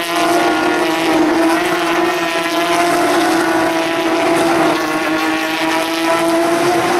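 A pack of Porsche 911 GT3 Cup race cars with flat-six engines, passing through a corner and accelerating onto the straight. It gives one steady, loud engine note with others layered under it, sagging slightly about five seconds in and rising again near the end.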